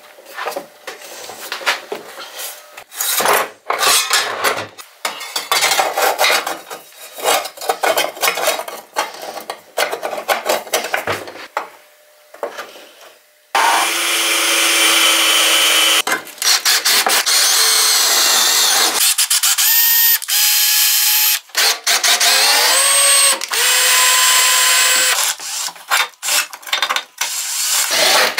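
Workshop work on steel parts: for about the first half, irregular clanks and knocks of metal being handled, then a power tool runs loudly, stopping and starting several times, its motor pitch rising as it spins up after one restart.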